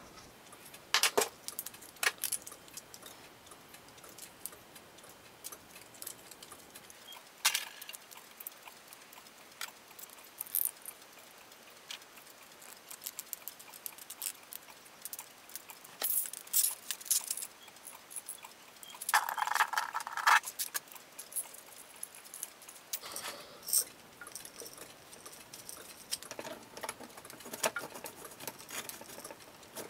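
Scattered clicks and light knocks of 3D-printed plastic parts and a metal rod being handled and fitted together, with a short scraping sound about two-thirds of the way through.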